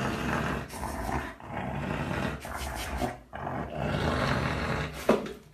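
Husky grumbling and growling in three long drawn-out phrases, the complaining noise of an upset dog, with a brief sharper call near the end.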